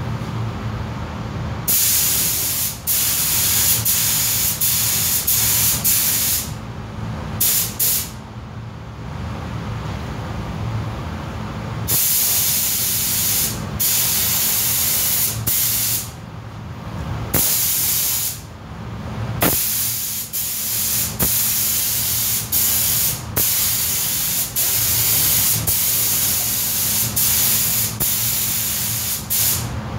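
Paint spray gun hissing in long passes, cut off briefly again and again as the trigger is released, laying a coat of paint. A steady low hum runs underneath.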